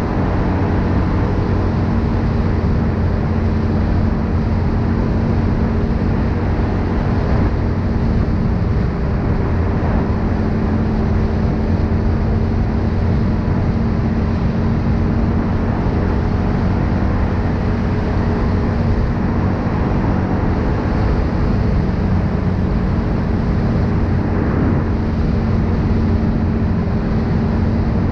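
Linhai 500 ATV's single-cylinder four-stroke engine running at a steady cruising pitch under way, mixed with wind rushing over the microphone and tyre noise on the asphalt.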